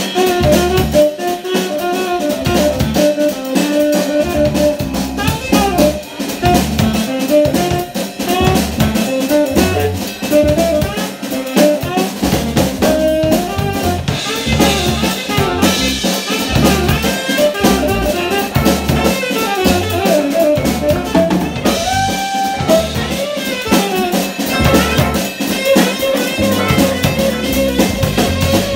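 Live jazz band playing: a tenor saxophone carries the melody over electric bass guitar, electric guitar and a drum kit keeping a steady beat.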